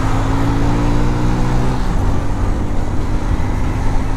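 Hero Honda Super Splendor's 125 cc single-cylinder four-stroke engine pulling hard at full throttle on a top-speed run, its note climbing slowly, with heavy wind rushing over the microphone. About two seconds in the engine tone fades and the wind takes over.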